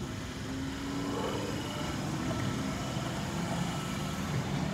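V-set double-deck electric intercity train rolling slowly past: a steady low rumble with a motor hum, a slightly stronger tone for the first second or so.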